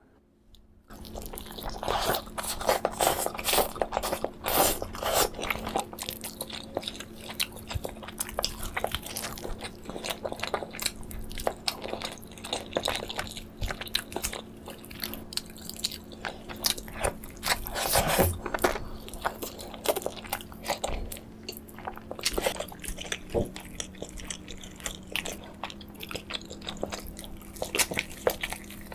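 Close-miked eating of whole roasted chicken: meat pulled apart by gloved hands, bitten and chewed. It comes as a dense run of clicks that starts about a second in.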